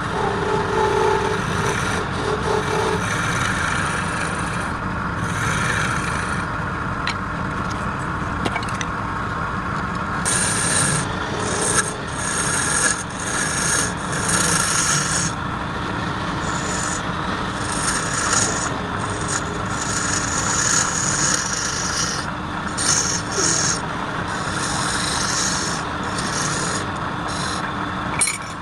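Wood lathe running while wood is worked against the spinning piece: a steady hum, with repeated hissing, rasping passes starting about ten seconds in.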